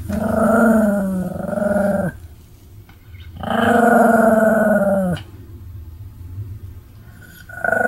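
Pomeranian giving long, drawn-out vocal calls, each one to two seconds and falling slightly in pitch at the end: three of them, the first in two parts and the last starting near the end.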